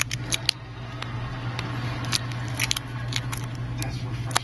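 Irregular small clicks and light scrapes from hand work on a phone's glass and tools on a bench, over a steady low hum.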